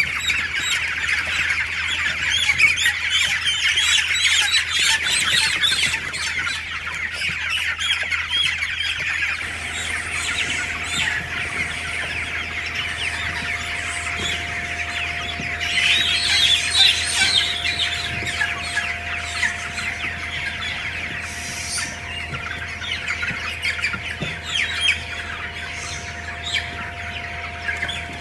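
A large flock of young chickens cheeping continuously, a dense chorus of overlapping high peeps. About ten seconds in, a steady machine hum joins underneath and keeps on.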